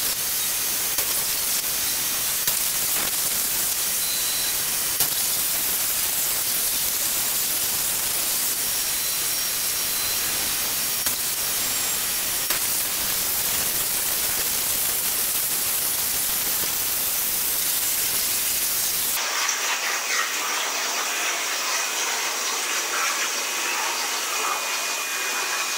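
Air plasma cutter (Unimig Razor Cut 45) on a CNC table cutting 3 mm aluminium plate: a steady loud hiss of the arc and its air flow. About nineteen seconds in the hiss changes abruptly and turns thinner, losing its low end.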